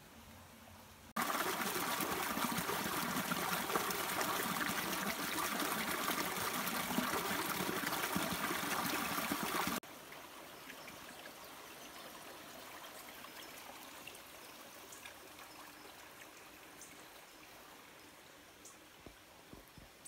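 Running stream water, loud and close, starting suddenly about a second in and cutting off abruptly near the middle. After that comes a fainter steady rush with a few light ticks.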